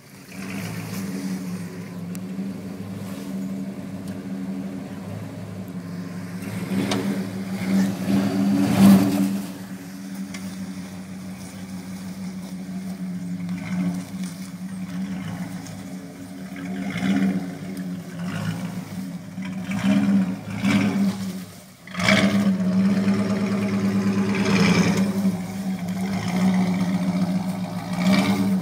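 1994 Jeep Grand Cherokee's engine pulling the lifted SUV slowly over rocks, its revs swelling with bursts of throttle, loudest about a third of the way in and again through the later part.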